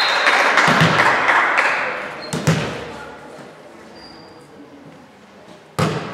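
Volleyball serve: one sharp slap of a hand striking the ball near the end. Before it, voices and shouting fade over the first two seconds, with two dull ball thumps on the wooden gym floor.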